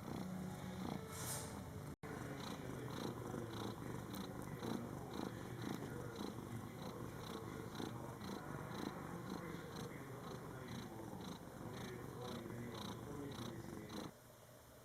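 Cat purring close up, a steady rumble pulsing about twice a second with each breath. It breaks for a split second about two seconds in and stops abruptly near the end.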